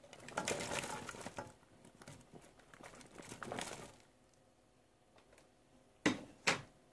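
Chopped onions being tipped into a steel pot onto raw meat, the pieces pattering and rustling as they fall in two spells, followed by two sharp knocks near the end.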